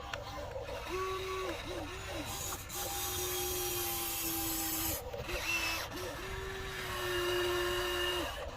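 Electric gear motors of a Huina 1594 radio-controlled excavator whining in short stop-start runs as its controls are worked, some brief and some lasting a couple of seconds.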